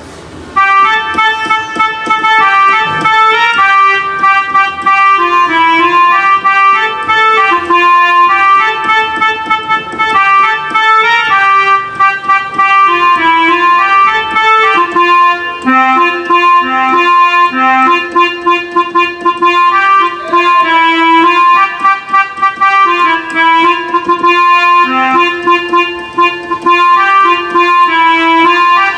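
Yamaha PSR-I300 portable keyboard played on its harmonium voice: a continuous melody of held notes over a lower moving line.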